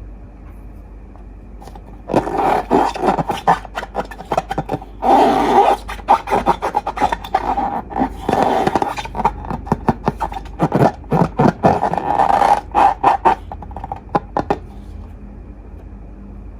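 Slime being worked by hand with long balloons: dense, irregular squishing and rubbing sounds. They start about two seconds in and stop a couple of seconds before the end.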